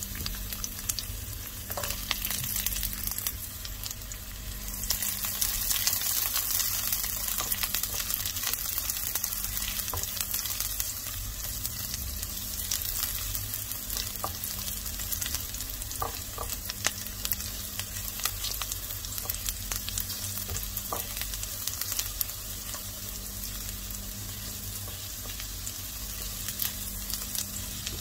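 Sliced garlic sizzling in hot cooking oil in a nonstick pan, with scattered crackles and pops. The sizzle grows louder about five seconds in as the garlic is stirred with a spatula.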